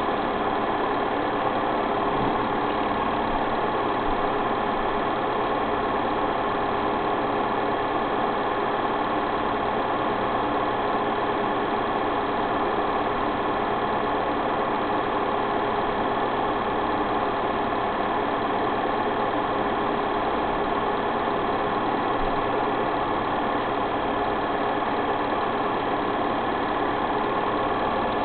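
Steady mechanical running noise from a motor, an even whir with a constant hum that does not change.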